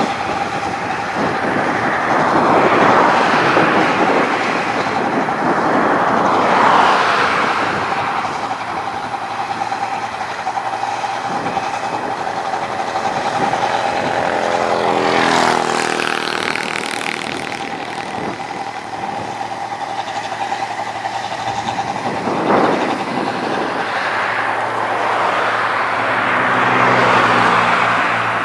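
Road traffic passing close by: the noise swells as vehicles go past every few seconds. About halfway through, one passes with its engine pitch falling.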